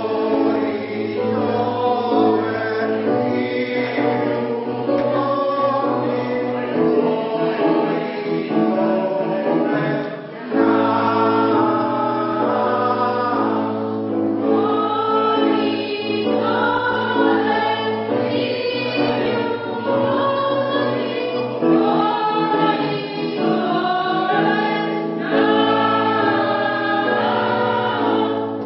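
Polyphonic choir singing in several parts, with sustained held notes and a brief break about ten seconds in.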